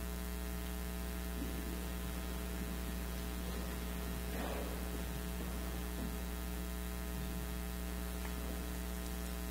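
Steady electrical mains hum, a low buzz of evenly spaced tones, with a faint brief noise about halfway through.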